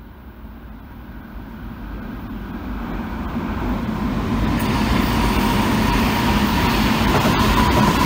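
Tobu 9050 series electric commuter train approaching, its running noise growing steadily louder as it nears. A steady high whine joins in about halfway through.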